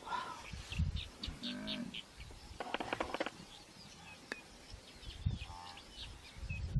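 Scattered animal calls and chirping in open country: a few short pitched calls, a rapid chattering call about two and a half seconds in, and another short call near the end.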